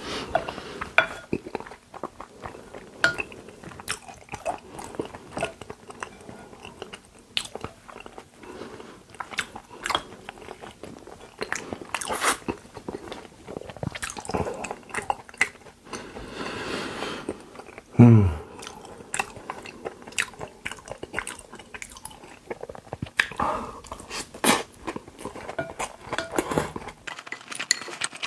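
Close-miked chewing of raw beef (yukhoe): wet mouth clicks and smacks, irregular and continuous, with a brief falling hum from the eater about eighteen seconds in.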